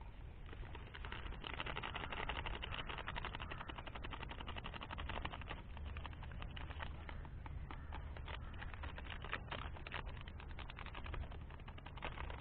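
Foil instant-coffee sachet crinkling and being tapped while the powder is shaken out into a cup: a fast, quiet patter of small crackles and clicks.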